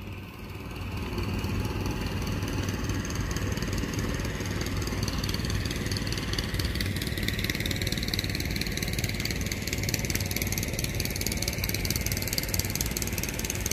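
A boat engine running steadily on the river, becoming louder about a second in and then holding an even drone.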